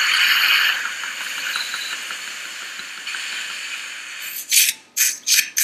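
Dental surgical suction drawing air and fluid from the mouth with a steady hiss, which breaks into several short bursts with gaps near the end.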